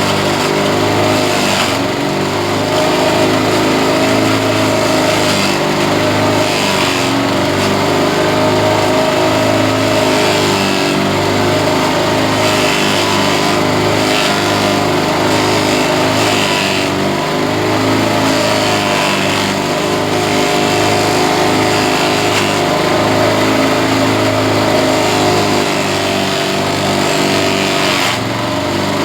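Grass chopper machine running steadily on its small engine, its pitch rising and falling slightly every few seconds.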